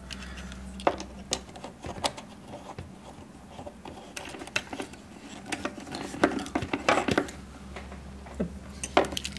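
Scattered clicks and taps of hands handling a small FPV racing drone's plastic propellers and frame, busiest a little past the middle, over a steady low hum.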